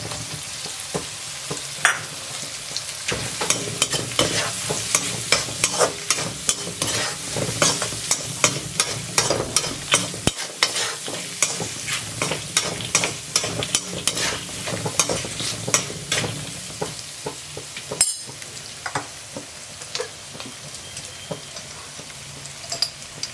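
Shallots and drumstick pieces sizzling steadily in hot coconut oil in a kadai while they are stirred, with quick clicks and scrapes of a spatula against the pan. The stirring is busiest in the middle and thins out toward the end.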